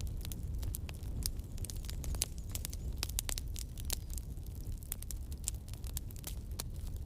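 Campfire burning, with frequent sharp irregular crackles and pops over a steady low rumble of the flames.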